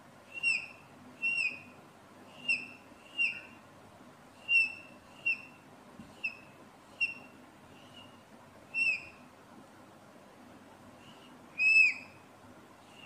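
Dry-erase marker squeaking on a whiteboard as curved strokes are drawn: about a dozen short, high squeaks, each dipping a little in pitch, roughly one a second, with a pause before a louder one near the end.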